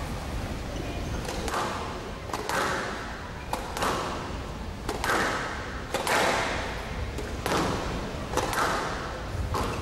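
Squash rally: the ball cracking off rackets and the court walls in sharp hits, roughly one a second with some quick doubles, each ringing briefly in a large hall.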